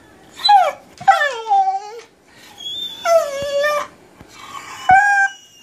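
Pit bull–type dog whining: four high, drawn-out cries, the longest about a second, most sliding down in pitch.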